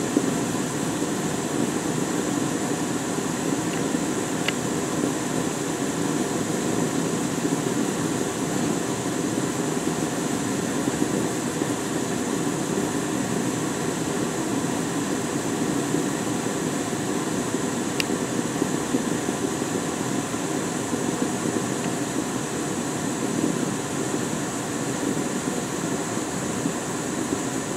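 Gas burner flame burning steadily with a low rushing noise. Two faint clicks come through it, one a few seconds in and one past the middle.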